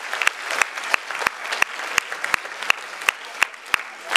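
Audience applauding, with one person's loud, sharp claps close by at about three a second over the dense clapping of the crowd.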